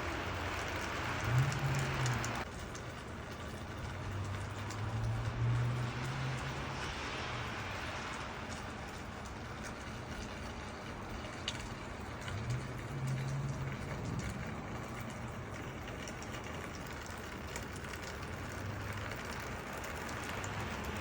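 Outdoor ambience in a snowstorm: a steady hiss of wind and snow, with the low hum of a vehicle engine passing a few times.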